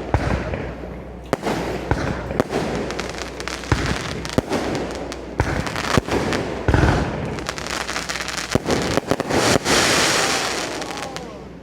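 Aerial fireworks display: a quick run of shell bursts and sharp bangs, with a heavier boom about seven seconds in and a long hissing crackle near the end.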